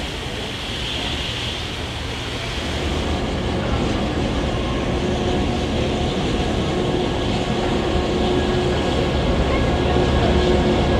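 NSW C38-class Pacific steam locomotive 3801 moving off with its carriages, with a low rumble of the train rolling that grows louder. Its steam hiss fades after about three seconds.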